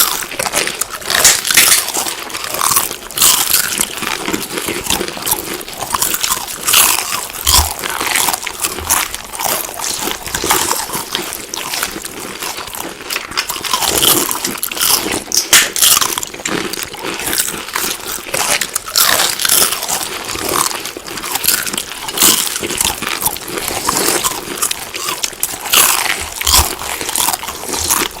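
Chewing and biting of crunchy food: a steady run of rapid, irregular crunches.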